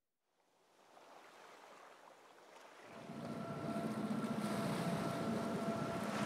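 Wind and water rushing past a sailing catamaran under way, fading in from silence. About halfway through it grows louder and a steady mechanical hum joins the rush.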